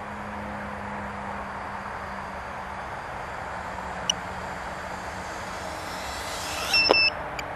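Steady hiss with a faint low hum, broken by a short high-pitched electronic beep about four seconds in. Near the end, a rising whine, a sharp click and a louder, longer high beep.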